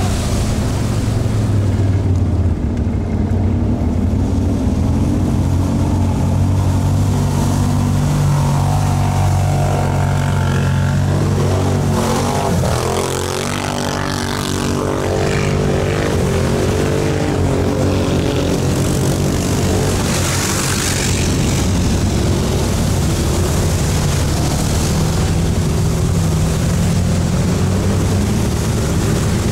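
ATV engine running steadily, its pitch rising and falling in the middle stretch as it revs.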